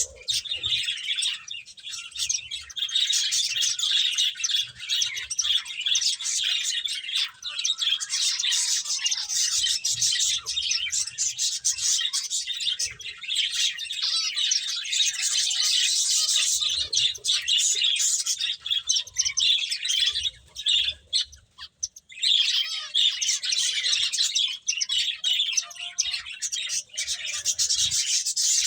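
Pet finches chirping, many short high chirps overlapping in a dense, continuous chatter that breaks off briefly about three-quarters of the way through.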